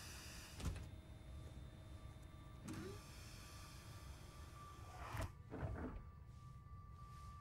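Low steady rumble of film room ambience, with a few soft knocks and a short creak scattered through it, and a faint steady high tone that comes in about halfway.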